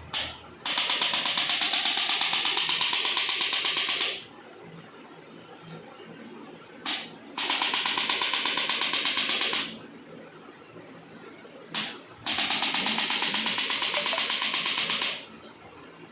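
Electric chiropractic adjusting instrument firing three bursts of rapid, even taps, each lasting about three seconds and preceded by a single short click.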